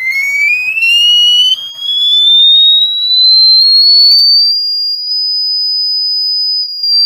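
A single pure electronic tone sweeping smoothly upward in pitch for about four and a half seconds, then holding on one very high note, played to show pitch changing from low to high.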